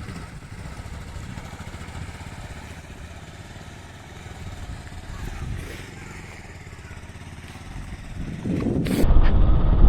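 Motorcycle engine running steadily at low revs, with a fast low pulsing beat; it gets louder near the end.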